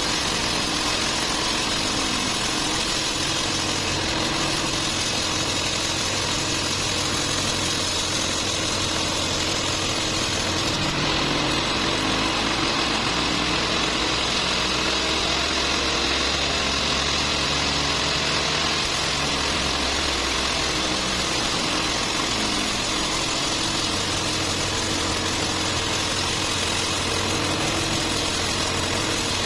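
Band sawmill running steadily, its blade cutting lengthwise through a large trembesi (rain tree) log.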